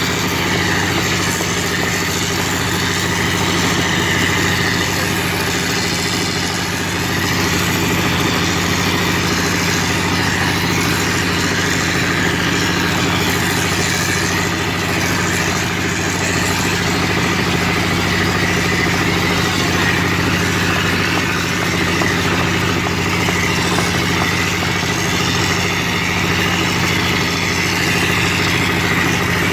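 Wall plastering machine's motor running steadily.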